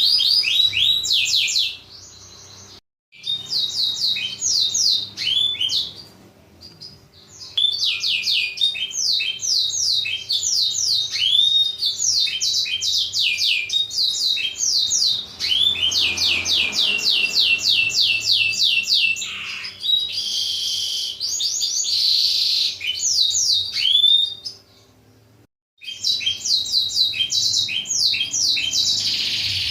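Blackthroat (black-throated canary) singing: long, fast, high trills of quickly repeated sweeping notes, broken by short pauses and by two sudden brief silences, one about three seconds in and one near twenty-five seconds.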